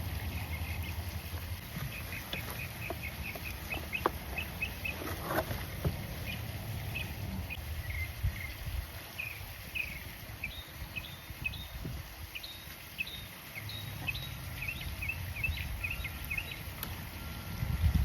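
Small birds chirping, a run of short high notes repeating throughout, over a low background rumble, with a brief rustle about five seconds in.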